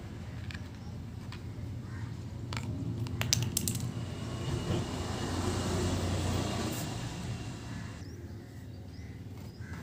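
Several sharp plastic clicks and taps from a toy remote control's open battery compartment and AA batteries being handled, bunched together a few seconds in, over a low steady background rumble.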